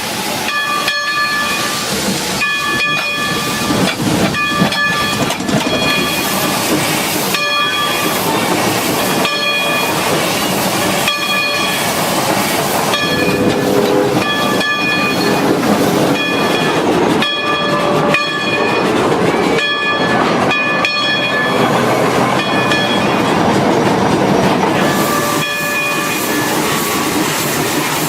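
Geared Climax steam locomotive train running, a steady rhythm of clanks and knocks with hiss, and short ringing metallic tones recurring between the knocks.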